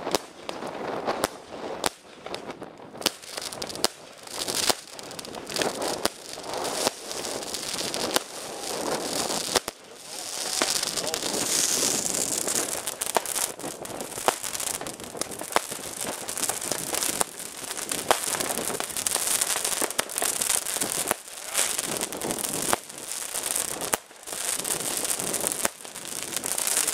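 Consumer fireworks going off: a ground-fired battery sending up comets and bursts, with sharp bangs in quick, irregular succession. From about ten seconds in, the bangs merge into a dense, continuous crackle.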